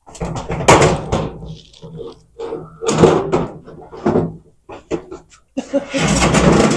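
Sheet-metal panels of a Maytag electric dryer clanking and rattling as they are pulled and worked loose to get at the heat element, in several irregular bursts, the longest near the end.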